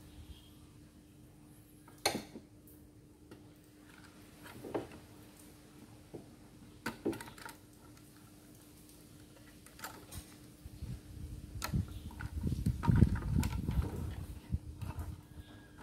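Plastic housing of a Philips Diva clothes iron being handled on a workbench: a few scattered clicks, then a stretch of knocking and rubbing as the casing is turned and worked in the hands, loudest near the end.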